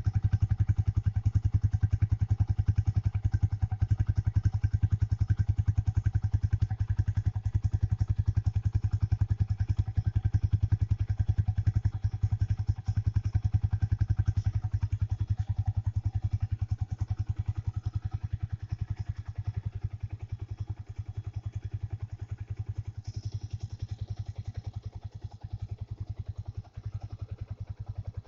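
Old-model Yamaha Vixion's single-cylinder 150 cc engine idling steadily with an even, rapid exhaust beat. It gets slightly quieter over the second half.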